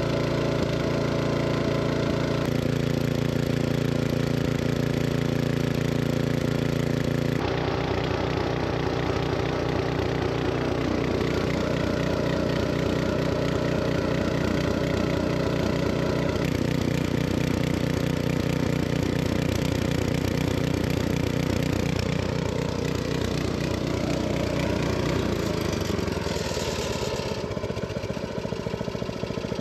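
Small engine running steadily, lubricated with EP80W gear oil instead of engine oil. Its note shifts abruptly every few seconds.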